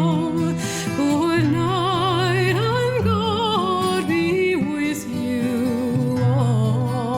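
Music: a solo voice singing long held notes with a wide vibrato, moving up and down in pitch, over a steady low sustained accompaniment.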